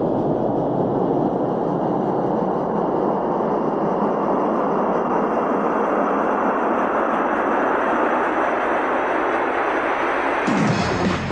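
Synth-pop intro: a steady rushing noise swell that slowly rises in pitch, with the song's beat and bass coming in near the end.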